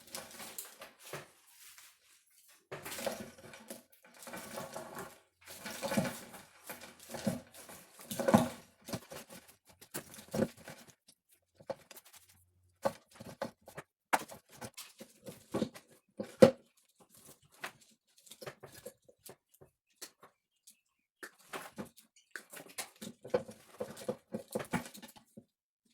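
Hands working over an engine wiring harness: irregular rustling, scraping and clicking of wires and plastic loom being pulled and moved, in short bursts with pauses between.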